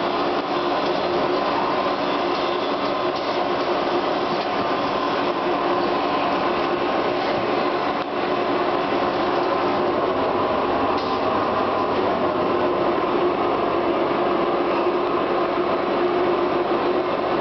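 Pneumatic vacuum conveying system sucking sawdust from a sack through a spiral suction hose: a steady rushing of air and sawdust over a constant machine hum.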